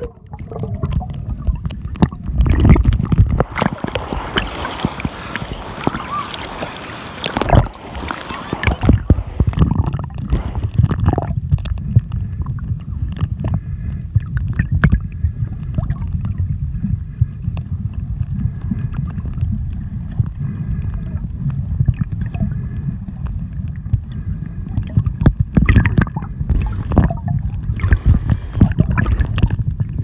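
Churning sea water heard underwater: a dense, muffled low rumble with gurgling and scattered knocks and splashes. During the first several seconds there is brighter rushing and splashing as the water is choppy near the surface.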